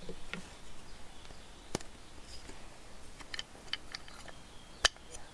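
Small plastic clicks and handling noise as a replacement electric motor is pressed into a power door lock actuator's plastic case. One sharper click comes about two seconds in and a louder one near the end, a little pop as the motor's connector points go in.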